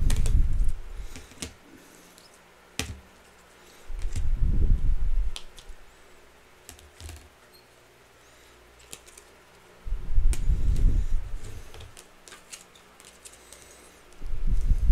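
Light clicks and taps of trading cards and plastic card holders being handled on a desk. Four low rumbling bumps, each about a second long, come near the start, about four seconds in, about ten seconds in and near the end.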